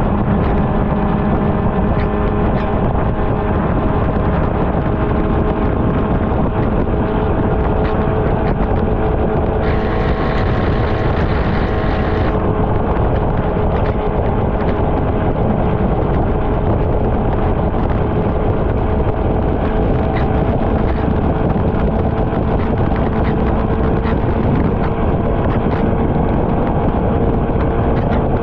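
Suzuki GSX-R600 inline-four motorcycle engine running at a steady cruise, mixed with wind on the microphone and tyre noise on wet road. About ten seconds in, a brighter hiss rises for a couple of seconds, then drops back.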